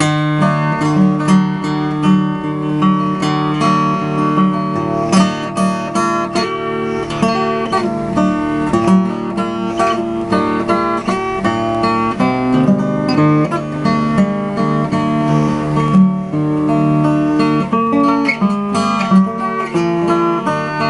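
Acoustic guitar playing an instrumental intro, a run of plucked notes over sustained bass notes.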